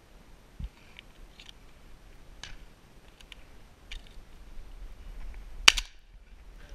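A single shotgun shot, sharp and loud, about five and a half seconds in, after a few seconds of low background with faint clicks and rustling.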